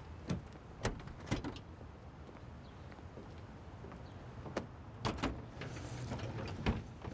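A few sharp steps or clicks, then a pickup truck's bed cover being unlatched and swung up open, ending in a sharp knock.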